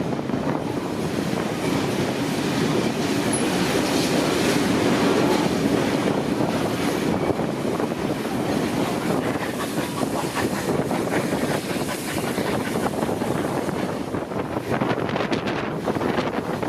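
Passenger train running along the track: a steady rumble of wheels on rails with some clickety-clack, holding fairly even throughout.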